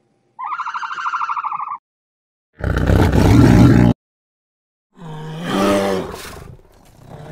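Three animal calls cut one after another: first a short, high, pulsing call; then, about two and a half seconds in, a loud rough tiger roar lasting over a second; then, from about five seconds in, a lower, drawn-out bear vocalisation that rises and falls.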